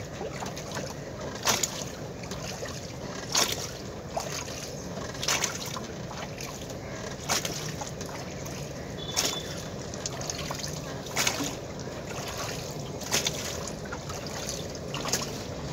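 Wooden rowboat's bamboo oar being rowed through lake water in a steady rhythm: a short splash with each stroke, about every two seconds, over a constant wash of moving water.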